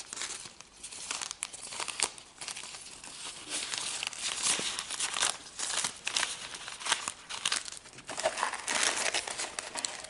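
A baseball card pack's wrapper crinkling and tearing open in the hands, a dense run of irregular crackles and sharp clicks.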